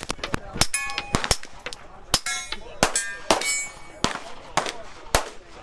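Shots from a suppressed 9mm pistol, the Kimber R7 Mako Carbon Compact, about nine sharp cracks at an uneven pace, with steel targets ringing briefly after hits. The report is well suppressed.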